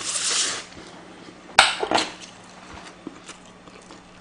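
Close-miked eating sounds: a short noisy mouthful right at the start, then a sharp clack of chopsticks against a dish about a second and a half in, with a smaller knock just after.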